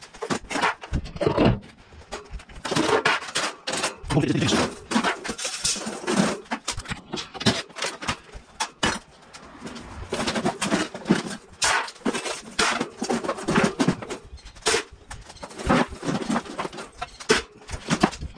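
Sheet-metal clanking and rattling as an outdoor air-conditioner condenser unit is taken apart, its fan top and louvered side panels handled and set down in a string of irregular knocks.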